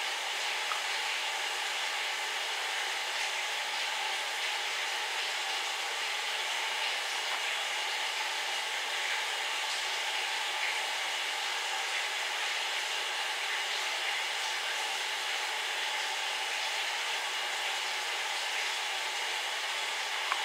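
Steady, even rushing hiss that does not change.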